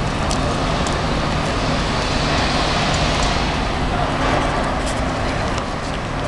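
Street traffic noise with a low steady engine hum, swelling around the middle.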